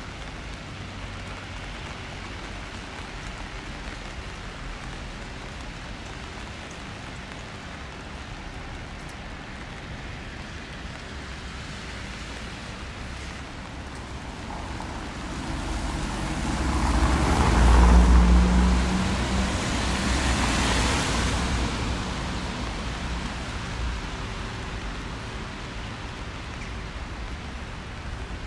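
Steady rain falling on a wet city street. About fifteen seconds in, a car passes on the wet road: its engine rumble and tyre hiss swell to a peak and then fade away over several seconds.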